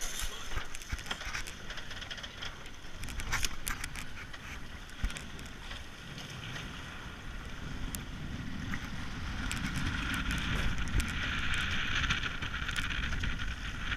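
Wind and water rushing around a racing catamaran under way, with scattered knocks and rustling as sailcloth and lines are handled. The hiss and low rumble build over the last few seconds.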